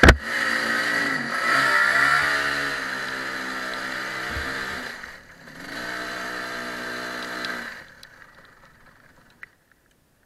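Kart engine running as the kart pulls away, its note dipping and rising, easing off briefly about five seconds in, then picking up and holding steady before dropping to a faint level near the end. A sharp knock right at the start as a gloved hand hits the onboard camera.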